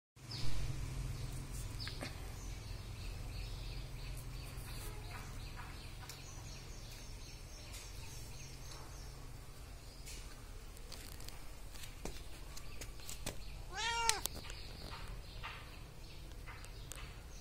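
Domestic cat meowing once near the end: a single short call that rises and falls in pitch. A brief sharp sound comes right at the start.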